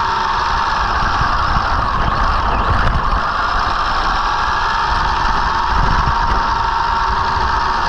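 Arrma Senton RC truck driving, its electric motor and gears giving a whine that dips and rises in pitch with the throttle, over a steady rush of noise.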